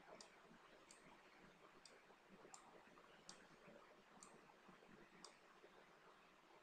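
Near silence: quiet room tone with about seven faint, sharp clicks at uneven intervals, roughly one a second.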